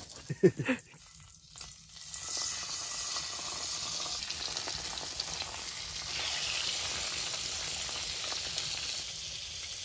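Burbot fillets frying in oil in a cast iron skillet on a wood stove: a steady sizzle that starts about two seconds in and grows a little louder about six seconds in.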